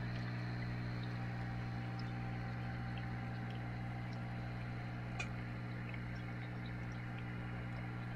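Aquarium equipment humming steadily, a low electrical hum with a faint hiss, and a small click about five seconds in.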